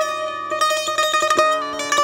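Afghan dotar, a long-necked plucked lute, playing a quick run of plucked notes over a steady ringing drone note.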